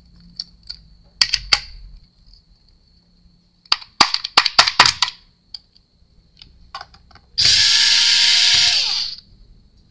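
Handheld electric screwdriver backing out laptop bottom-cover screws. First comes a series of sharp clicks and taps of metal on the case. Near the end the screwdriver motor runs for about a second and a half, then winds down.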